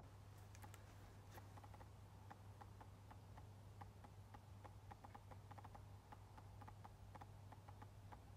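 Faint, irregular quick ticks, several a second, of a Nikon 600mm f/4 VR lens's autofocus motor driving back and forth as it hunts for focus in very low light, recorded by the camera itself.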